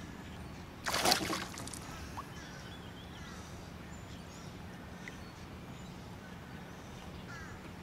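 A hooked pickerel thrashing at the surface beside the boat: one brief, loud splash about a second in.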